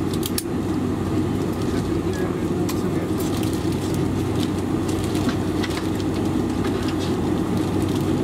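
Steady low cabin hum of a Boeing 747-400 heard from inside at a window seat, its engines running on the ground, with scattered faint clicks and rattles.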